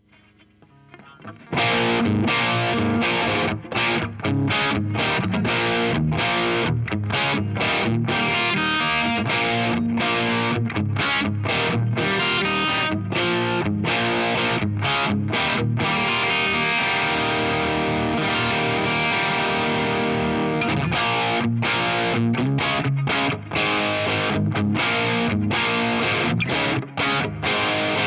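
Electric guitar played through an MXR Duke of Tone overdrive pedal into a Laney Lionheart preamp pedal, heard through a Vintage 30 cabinet impulse response: distorted riffing broken by many short, sharp stops. It comes in loud about a second and a half in, after a faint start.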